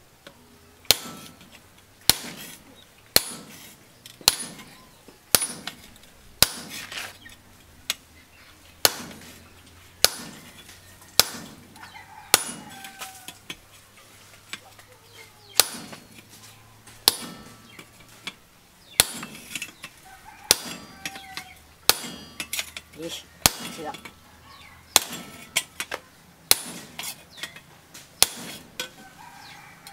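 A hand lever shear snaps shut on the steel of a rusty meat cleaver blade, making sharp metal-on-metal clacks about once a second with a short pause about halfway. Chickens cluck between the strokes.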